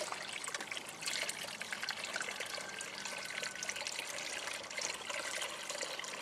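Garden hose running into a shallow plastic kiddie pool: a steady spatter and trickle of water hitting the water's surface.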